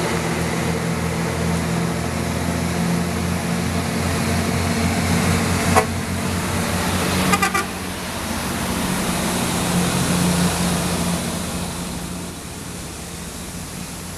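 Diesel engines of heavy tractor-trailers, a Super Brigadier dump truck and a Kenworth T800, pulling past at low speed. A short horn toot comes about six seconds in and a couple more quick toots about a second and a half later. The engine sound eases off near the end.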